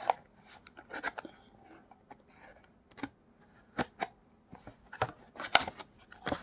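Packaging of an HDMI cable being worked open by hand: an irregular string of short snips, clicks and crinkles.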